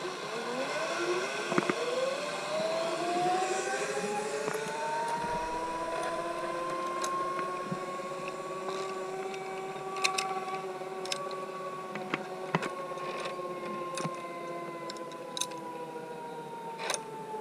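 Zipline trolley pulleys running along a steel cable: a whine that rises in pitch over the first few seconds as the rider picks up speed, holds steady, then begins to fall near the end as the trolley slows. Scattered metallic clicks on top.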